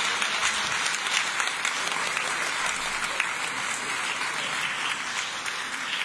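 Large theatre audience applauding: many hands clapping together in a dense, steady patter that eases slightly near the end.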